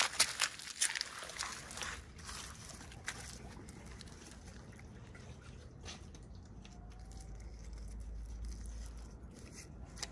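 A run of sharp clicks and crinkles in the first two seconds, like packaging and small plastic pieces being handled. After that it is quiet, with a faint low hum that grows slightly near the end.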